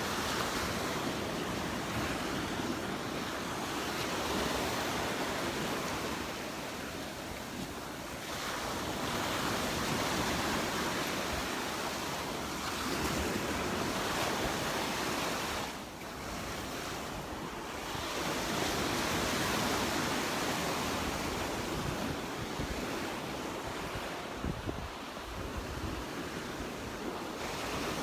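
Gulf of Mexico surf washing onto the beach, swelling and easing every few seconds, with wind buffeting the microphone.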